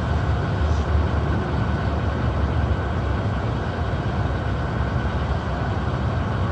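A 1995 Honda Accord's engine idling, a steady low rumble.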